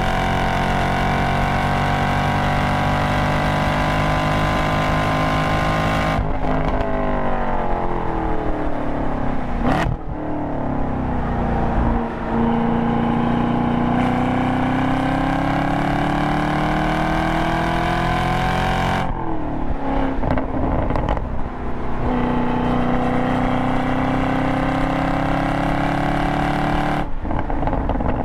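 A 2022 Camaro SS 1LE's stock 6.2-litre LT1 V8, heard from inside the cabin under hard track driving. It starts at full throttle with the revs held high, then lifts off with the revs falling under braking and a sharp blip on the downshift. It then makes two long pulls with the revs climbing steadily, a gear change between them, and lifts off again near the end.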